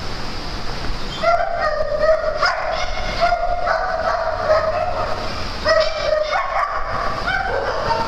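A dog whining in long, high, steady-pitched cries, starting about a second in and breaking off briefly near the end before starting again.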